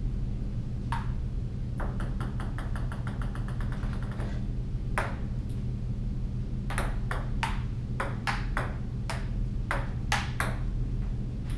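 Table tennis ball clicks: about two seconds in, a ball bounces with quickening bounces until it settles, then from about seven seconds in a string of sharp hits on paddle and table a few per second, as in a rally. A steady low hum runs underneath.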